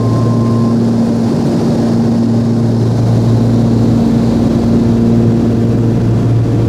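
Cessna 340A's twin turbocharged TSIO-520 piston engines and propellers running steadily, a loud even drone that holds the same pitch throughout.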